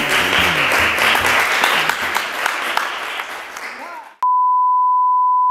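Applause with cheering voices echoing in a large hall, fading away over about four seconds. After a brief gap a single steady beep tone starts and holds.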